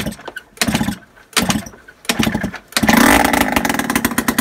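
Freshly rebuilt 50cc two-stroke engine of a 2006 Yamaha Aerox scooter kicked over a few times in short bursts, then catching about three seconds in and running loud with rapid, even firing pulses. It is running without an exhaust fitted: the first start after the top-end rebuild.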